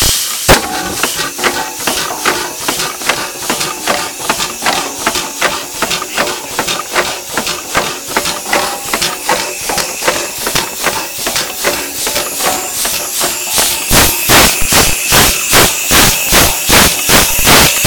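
Antique 15 hp Acme steam engine running on compressed air, its cylinder exhausting in a rapid, even beat of puffs. The beat gets louder for the last few seconds.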